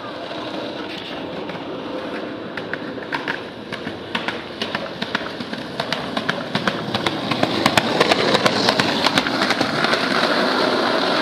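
Skateboard rolling on rough pavement: a steady wheel rumble with many sharp clicks as the wheels cross cracks, growing louder over the second half.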